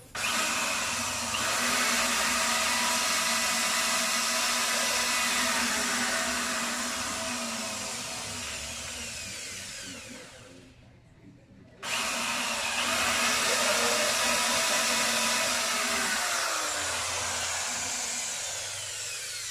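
Electric drill boring a hole through the plywood of a speaker box. It makes two long runs of about ten seconds each, with a short stop in the middle. During each run the motor's pitch slowly drops as it works through the wood.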